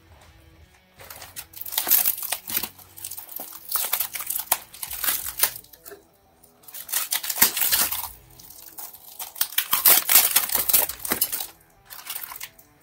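Brown wrapping paper and a clear plastic bag crinkling and rustling in bursts as they are pulled back by hand, with brief pauses between handfuls.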